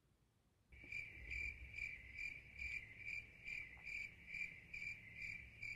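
Crickets chirping in a steady high trill that pulses a little over twice a second, cutting in abruptly from dead silence less than a second in: the stock cricket sound effect for an awkward silence.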